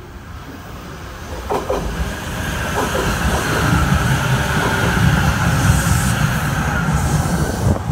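Electric train running past close by: a rumble of wheels on rails that grows louder from about a second and a half in and stays loud, with a few clacks over rail joints as it comes up.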